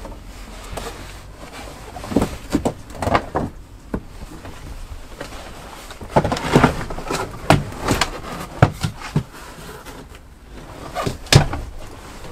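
Carpet being pulled off a motorhome's plywood dashboard and the dash being worked on by hand: irregular scrapes, rustles and knocks in clusters, with the sharpest knock a little after eleven seconds in.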